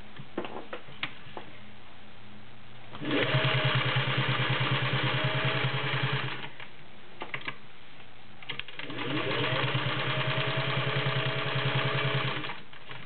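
Singer 600E Touch & Sew sewing machine stitching through six layers of denim in two runs of about three to four seconds each. It sews at a fast, even rate, with the motor winding up at the start of the second run, and the heavy fabric goes through with no trouble. A few clicks come before and between the runs.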